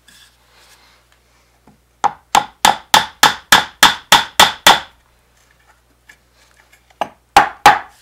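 A quick run of sharp taps, about ten in under three seconds, then three more near the end. The glued wooden dowel exhaust pipe is being driven into the wooden toy bulldozer's body.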